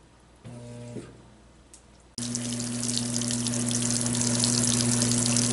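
GE top-load washer (model GTW335ASN0WW) starting its fill: a brief hum about half a second in, then about two seconds in water comes on suddenly and sprays into the tub onto the clothes, a steady hiss and splash over a steady low hum.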